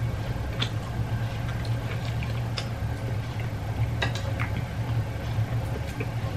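Scattered light clicks and taps of people eating at a table, from spoons on plates and chewing, over a steady low hum.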